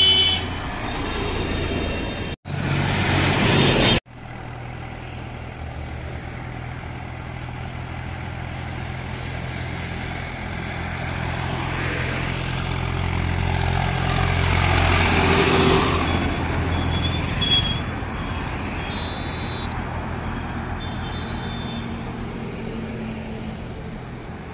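Swaraj farm tractors' diesel engines running steadily as they drive past on the road, amid passing traffic. The engine noise swells to its loudest about two-thirds through, then fades, with two brief dropouts near the start.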